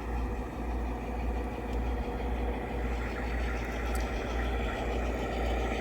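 Garden-railroad model locomotive running during yard switching: a steady low mechanical hum with a faint click or two.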